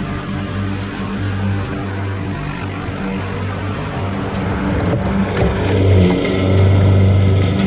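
Lawn mower engine running steadily, growing louder about six seconds in.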